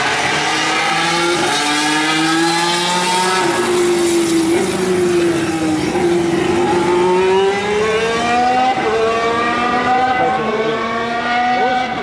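Formula One car's engine at racing speed through a corner: its pitch climbs, drops around the middle as the car slows, then rises again in a series of stepped climbs as it shifts up through the gears.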